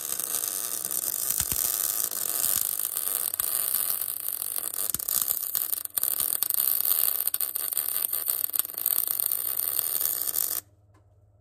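MIG welder arc crackling and hissing steadily while a bead is laid on a steel motor mount. It breaks off briefly about six seconds in and stops abruptly shortly before the end.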